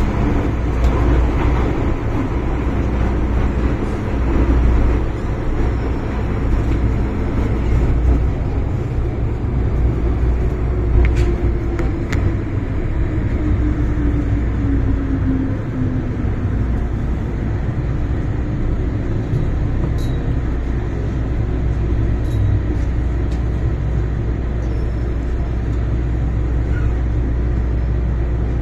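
MTR Kwun Tong Line M-Train electric multiple unit heard from inside the carriage: a steady low running rumble in the tunnel, then a falling whine as it brakes into the station about halfway through.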